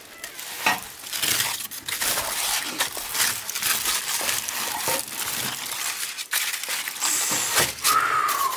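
Aluminium foil crinkling and crackling as it is peeled and torn by hand off foil-wrapped baked fish, with many small sharp crackles. A brief falling tone sounds near the end.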